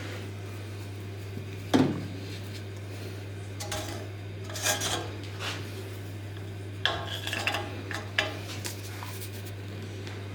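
Metal tools and parts clinking and knocking on a workbench: one sharp knock, then several short bursts of clattering, over a steady low hum.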